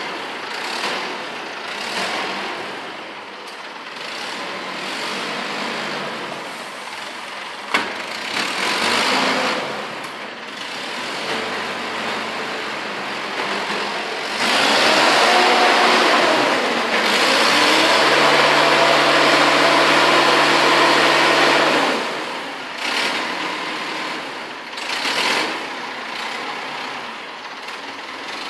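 Forklift with a paper-roll clamp attachment running, with a sharp knock about a quarter of the way in. About halfway through it gets louder for several seconds, with a whine that rises and falls and then holds steady, as the hydraulics turn and lift the clamp.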